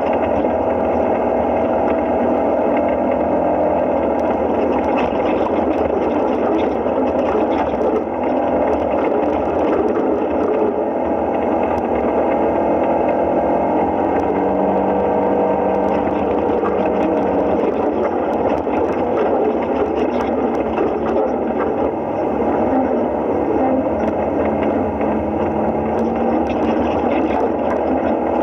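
Side-by-side UTV engine running as the vehicle crawls along a dirt trail, heard from inside the open cab. It is a steady drone whose pitch drifts a little up and down with the throttle.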